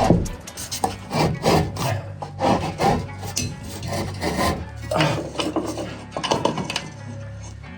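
Rubbing and scraping with a quick, irregular string of knocks and clicks.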